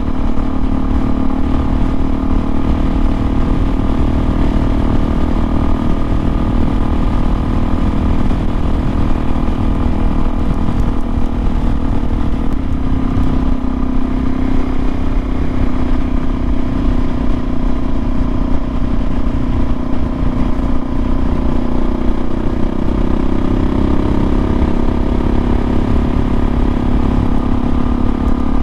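Kawasaki KLX 400's single-cylinder four-stroke engine running steadily at highway cruising speed, heard from the rider's seat over a dense low rumble of wind and road noise. The engine note climbs slightly in the last few seconds.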